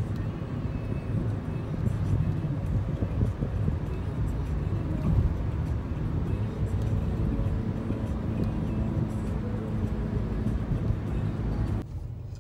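Car driving along a road, heard from inside the cabin: a steady low rumble of road and engine noise, which drops away near the end.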